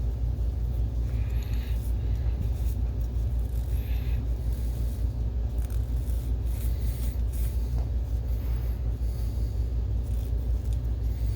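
Steady low background hum, with faint, scattered rubbing and scraping as a terry cloth rag wipes baked-on dust off the plastic blades of a small projector blower fan.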